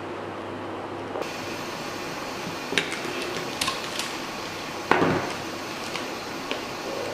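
Steady hiss from a fetal doppler's loudspeaker, with a few sharp clicks and a heavier knock about five seconds in.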